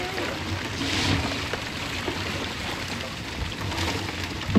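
Water splashing and churning as a school of tamban sardines thrashes at the surface inside a hauled-in net, with one sharp knock near the end.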